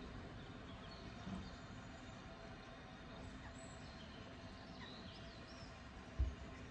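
Quiet outdoor background with small birds chirping a few times, and a single low thump near the end.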